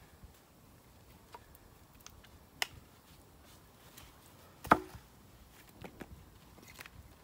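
A hatchet chops into a log with one sharp, loud strike about two-thirds of the way in, after a lighter knock a couple of seconds earlier. A few faint clacks of split firewood pieces being handled follow.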